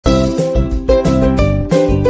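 Background music: a light melody of short pitched notes, a new note every third to half second.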